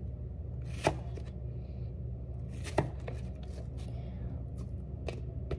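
Kitchen knife cutting apple slices on a paper plate, with sharp knocks as the blade goes through the apple and meets the plate, the loudest about a second in and near three seconds, fainter ones near the end.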